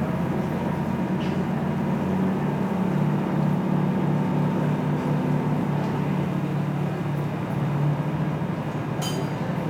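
A passenger ferry's engine running steadily underway. Its low hum shifts slightly in pitch a few seconds in, over a constant rush of water and wind.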